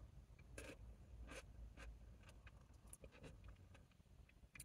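Faint eating sounds: a plastic spoon scraping and tapping in a paper soup cup, with soft mouth sounds, heard as a handful of short scrapes and clicks.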